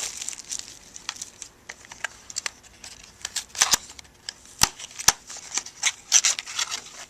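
Thick trading cards being handled and opened: a run of sharp, irregular clicks and light rustles as cards and pack wrapping are slid and flipped against each other.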